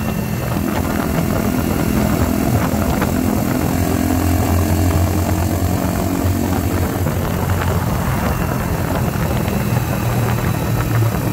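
Mutt Akita 125's single-cylinder engine running at a steady cruise through a slash-cut exhaust repacked with glass fibre, a constant drone with wind noise over the microphone.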